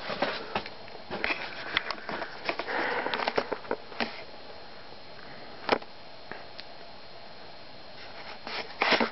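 Irregular clicks and short breathy rustles close to the microphone, busiest in the first four seconds and again near the end. Under them, a faint hum from a cast-iron spinner ceiling fan coasting down after being switched off.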